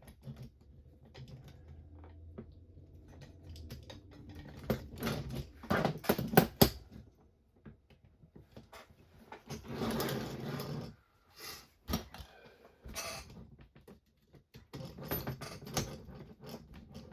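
Clicking and clattering of small parts and tools being handled during a model car kit build, with short bursts of rummaging or rustling between the clicks.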